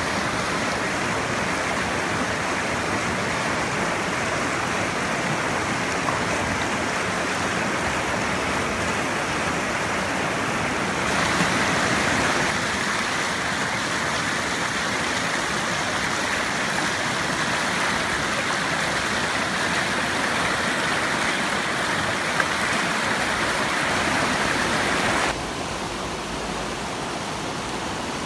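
Shallow river rushing over rocks in rapids, a steady continuous rush of water. It is briefly louder a little before halfway, and quieter and duller for the last few seconds.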